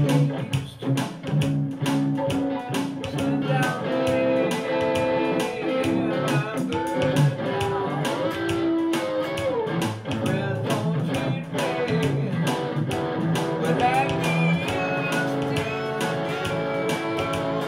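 Electric guitar playing an instrumental passage of a gospel shuffle, with bent, sliding notes over a steady beat of about four hits a second.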